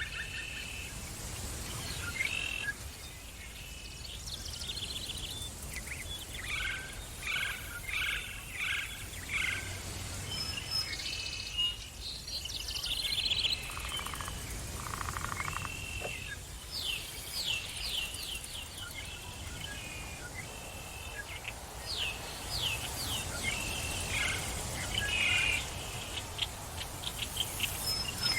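Several songbirds chirping and singing in a forest, in short repeated phrases over a low steady background hum of the woods.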